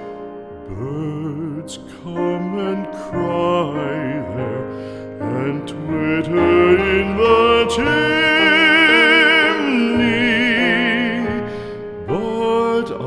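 A slow classical art song: a solo singer holds long notes with wide vibrato over instrumental accompaniment.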